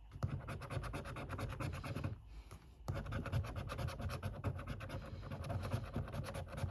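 Scratch card being scratched, with rapid back-and-forth strokes rubbing off the scratch-off coating. The strokes pause briefly a little past two seconds in, then carry on.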